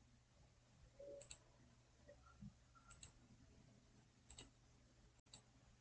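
Near silence: quiet room tone with a low hum and a few faint computer mouse clicks, about one, three and four and a half seconds in.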